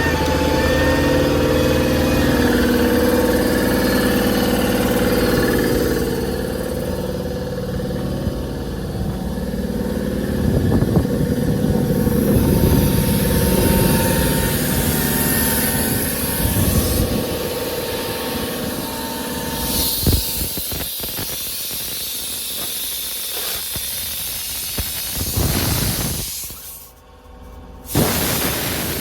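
Ford 6.4 Power Stroke V8 diesel running with its PTO-driven air compressor kicked on and pumping, joined by a loud hiss of air escaping from a leaking air-hose fitting. There is a sharp burst of hiss about 20 seconds in.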